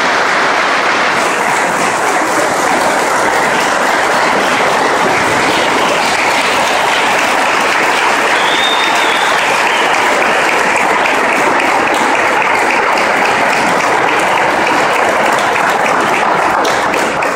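A large crowd applauding steadily, dense clapping that thins into more separate claps near the end.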